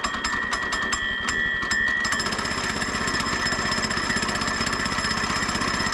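Small gasoline engine of a Woodland Mills HM122 sawmill running on choke just after a cold start, with a fast, even firing beat. A high whine over it drops out about two seconds in and the engine note changes.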